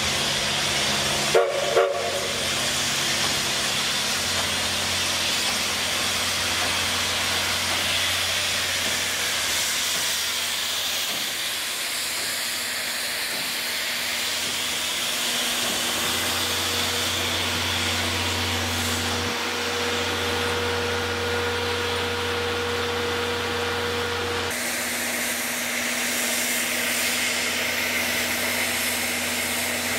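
JNR Class D51 steam locomotive D51 498 hissing steam steadily as it draws in slowly and stands. There are two sharp knocks about one and a half seconds in. A faint steady whine is heard in the middle.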